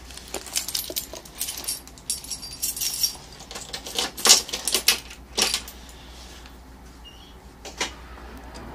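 A bunch of keys jangling and clicking as the ignition key of a Solaris Urbino 12 city bus is fitted and turned for a cold start. Irregular clicks and rattles come through the first six seconds, with one more near the end.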